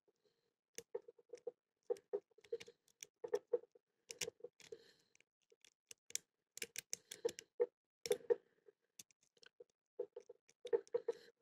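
Hook pick clicking and scraping on the pins inside a Blossom brand pin-tumbler padlock under a tension wrench, single-pin picking. It comes as a string of irregular small metallic clicks and ticks, in clusters with short pauses.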